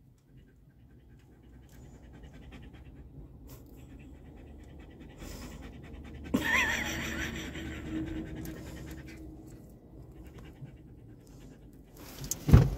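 A greyhound panting steadily, with a brief wavering high tone about six seconds in. Near the end a car door shuts with a sharp thump.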